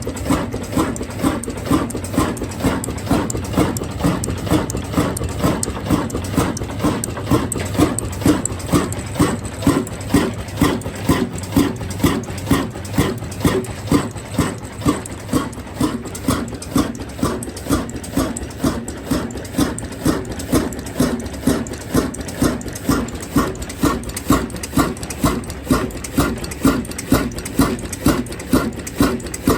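Diesel engine running slowly and evenly, a steady chug of about two beats a second.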